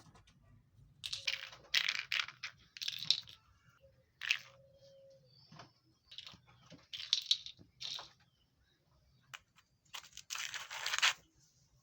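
Kitten playing with a crinkly toy, making a string of short crinkling, rustling bursts, the longest lasting about a second near the end.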